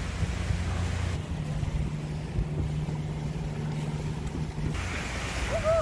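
Steady low rumble of a sailboat under way, with wind and water on deck and a steady hum through most of it. A brief rising pitched sound comes near the end.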